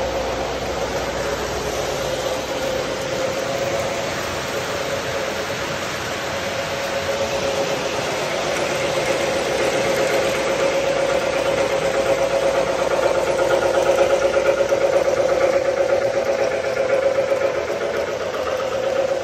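Model trains running on the layout: a steady mechanical hum with a fast fine pulse, swelling a little past the middle and easing near the end.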